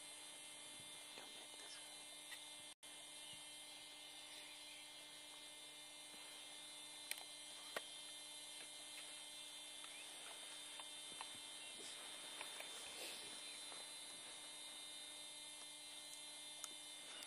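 Near silence: a faint steady hum of several even tones, with a couple of faint clicks about 7 and 8 seconds in.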